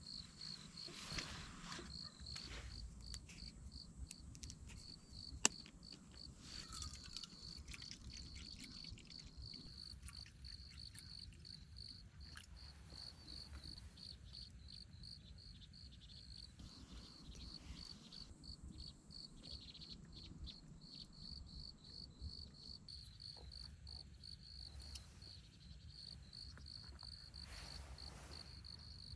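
Crickets chirping in a steady, even pulsing trill, with faint rustling and one sharp click about five seconds in.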